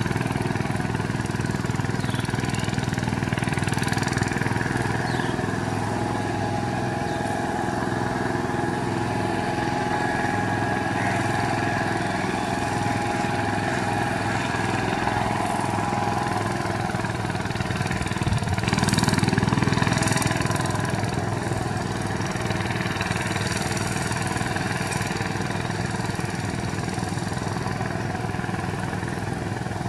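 VST Shakti 130 power tiller's single-cylinder diesel engine running steadily under load while it drags a mud-leveling board through flooded paddy mud. It grows louder for a couple of seconds about two-thirds of the way through.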